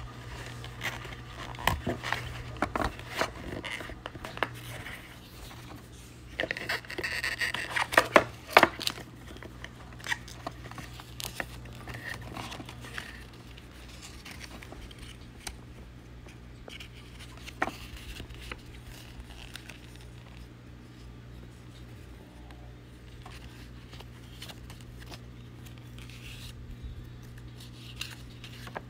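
Cardboard box packaging and a foam insert being handled: scattered clicks and taps, then a burst of rustling and scraping with sharp knocks about seven to nine seconds in, then quieter handling. A steady low hum runs underneath.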